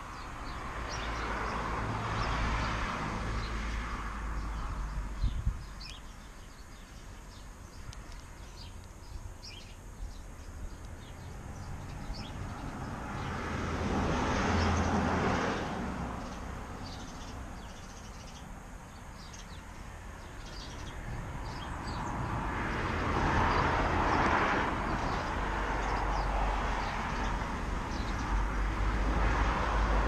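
Road traffic passing, its noise swelling and fading three times, with short, high bird chirps in the quieter stretches and a brief knock about five seconds in.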